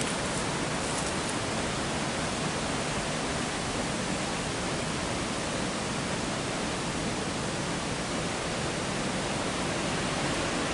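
Steady rush of water pouring over a weir on an old canal, an even hiss that does not change.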